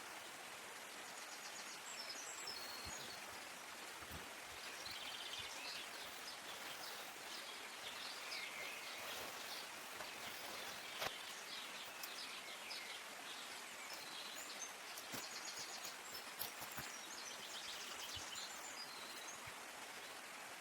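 Forest ambience: a steady hiss of falling water, with birds calling and trilling several times, in rapid chirping runs around two and fifteen to nineteen seconds in. A single sharp tap about eleven seconds in.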